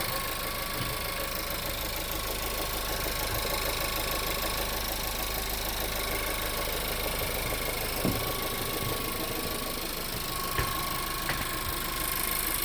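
Volkswagen Group 1.4 TSI (CZDA) turbocharged petrol four-cylinder idling warm with a strange knock, a few sharper clicks standing out about two-thirds of the way in and near the end. The knock comes only on the warmed-up engine and goes away once the gearbox is put in D.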